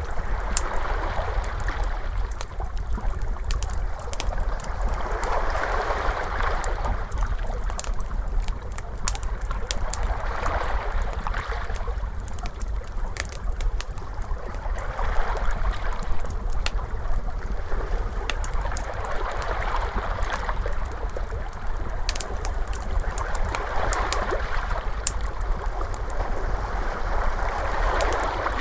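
Ocean waves washing in and out, swelling every four to five seconds, mixed with the sharp pops and crackles of a wood fire and a steady low rumble underneath.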